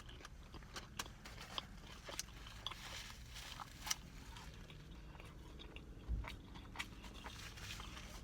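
Close-up chewing of a crispy fried chicken sandwich: quiet wet mouth sounds with scattered small crunches.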